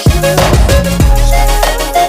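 Background pop music with a steady beat and heavy bass, in a gap between sung lines.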